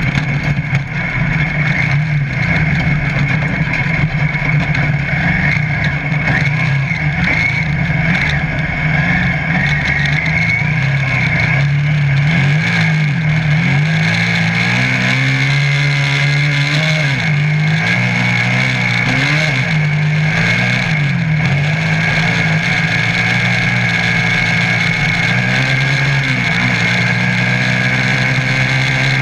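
Piranha off-road buggy's engine running hard at speed on a dirt road, its pitch rising and dipping several times through the middle as the throttle and speed change, over steady road noise.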